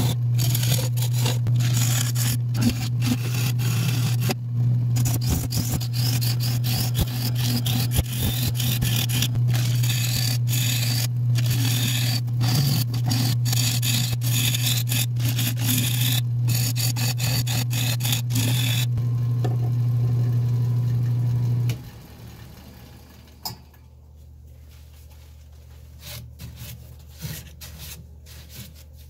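Nova 3000 wood lathe running with a steady hum while a turning tool hollows the inside of a spinning acacia bowl, the cut scraping and crackling. The cutting stops about two-thirds of the way in, and the lathe is switched off and falls silent about three-quarters of the way in, leaving only faint handling noises.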